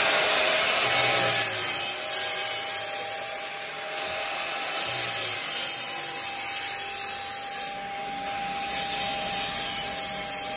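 Bosch miter saw running and crosscutting a wide hardwood board, its motor whining steadily. The cutting noise swells three times as the blade bites into the wood, easing briefly between.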